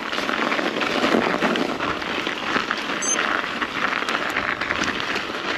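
Mountain bike riding up a trail: the tyres roll over gravel with a steady crunching hiss. About three seconds in there is a single short, high electronic beep from the bike's Garmin computer, its signal that the lowest gear has been reached.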